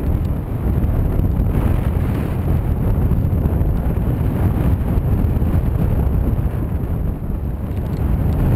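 Airflow in paraglider flight buffeting the microphone of a harness-mounted camera: a loud, steady low rumble of wind noise.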